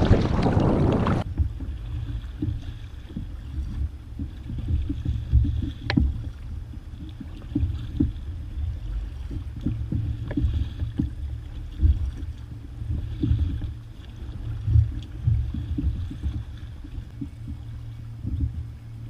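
Water slapping and sloshing against a kayak's plastic hull, with irregular surges every second or two and scattered sharp knocks. A loud rush of wind on the microphone stops about a second in.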